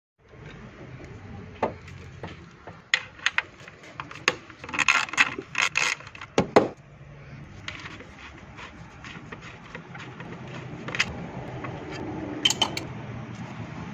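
Metal hand tools and fasteners clinking, rattling and scraping in an engine bay as a bolt behind the intake manifold is worked loose. A cluster of sharp clinks comes in the middle, with a few more near the end.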